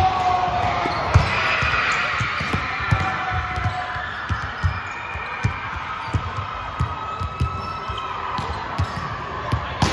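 Basketball game play on an indoor court: a ball bouncing in irregular thumps, several a second at times, with distant shouting voices, strongest in the first few seconds.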